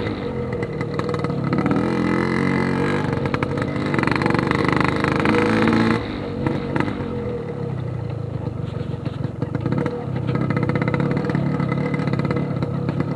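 Yamaha RX-King's 135cc single-cylinder two-stroke engine running through a Packing Power PK2 aftermarket exhaust while the bike is ridden. The engine note rises and eases off with the throttle, falling back about six seconds in.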